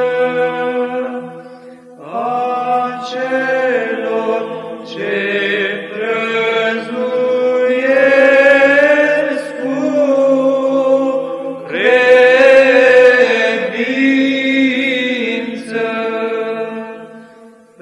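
Monks chanting a Byzantine psaltic hymn in the fifth mode (glas V), in Romanian: a slow, wavering melody line sung over a steady held drone note, with short breaks between phrases about two seconds in and at the end.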